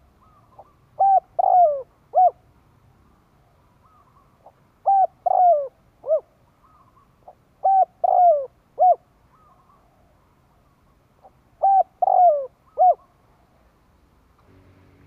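Spotted dove cooing: four phrases, each of three coos (a short one, a longer falling one, a short one), repeating every three to four seconds. This is the male's territorial song of a decoy bird, used to draw in wild doves.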